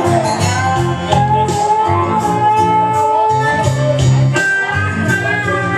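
Music with guitar, with a man's voice singing held notes over it.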